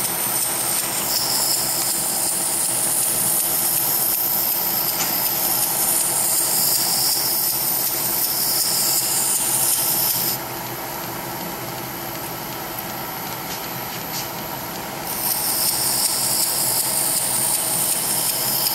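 Belt grinder running a 1-inch leather stropping belt backwards, with the steady hiss of a knife edge rubbing against the leather to strop off the burr. The high hiss drops away for about five seconds in the middle, then returns.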